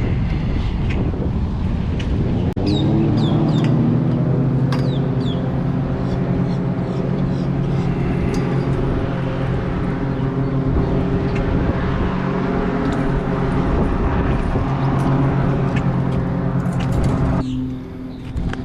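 An engine running at a steady pitch. A few short bird chirps come through about three to five seconds in, and the engine sound cuts off abruptly near the end.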